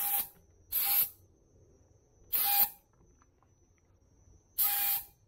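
Harbor Freight paint spray gun firing four short bursts of paint and compressed air, each a brief hiss with a steady whistling tone in it, as the spray pattern is tested.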